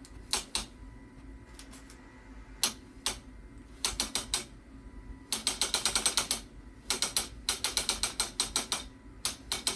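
Wooden loom's back-beam ratchet and pawl clicking as the sectional beam is turned to wind warp on: a few single clicks, then quick runs of about ten clicks a second in the second half.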